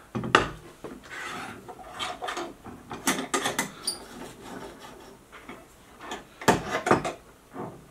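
Irregular metal clicks, knocks and scrapes from a guidescope being handled in its mounting rings while a thumbscrew that was blocking it is worked loose, with a cluster of sharper knocks about three seconds in and again near the end.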